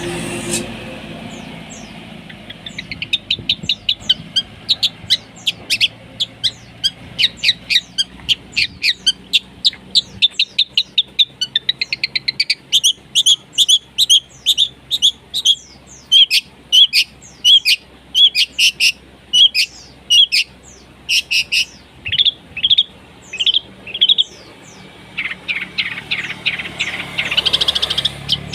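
Long-tailed shrike singing a harsh, fast song of rapid sharp notes, packed with mimicked calls. Midway it slows to evenly spaced repeated sharp notes, about two a second, then speeds into a dense burst again near the end.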